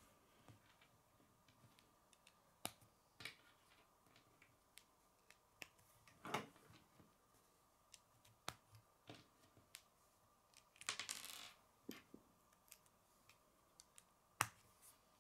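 Plastic K'nex rods and connectors clicking as they are handled and snapped together: scattered sharp clicks, with a short rattle about two-thirds of the way through.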